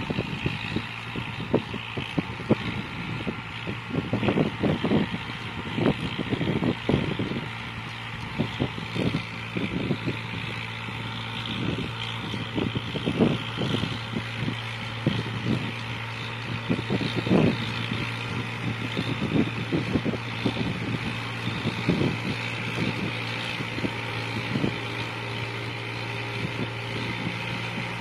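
1985 International tractor's engine running steadily under load while it pulls a rotary tiller through the soil, with irregular thumps over the engine hum.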